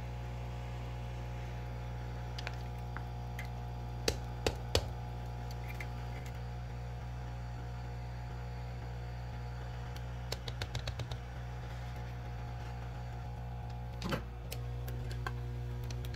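Hot air rework gun running steadily, a hum with an airflow hiss, heating the phone's battery to soften the adhesive under it. A few light clicks and taps come through, with a quick run of ticks near the middle and a thump near the end.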